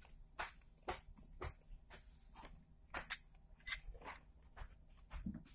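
Faint, irregular clicks and taps, about ten in all: fingers handling and tapping a hard plastic Talking Tom toy cat.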